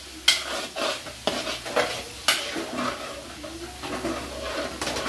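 A spoon stirring a sauce in a wok, knocking sharply against the pan about twice a second at first, then scraping more softly, while the sauce sizzles underneath.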